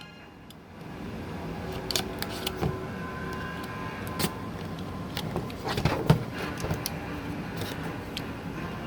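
Action-figure packaging handled as it is opened: cardboard and plastic rustling, with scattered clicks and knocks, the loudest about six seconds in.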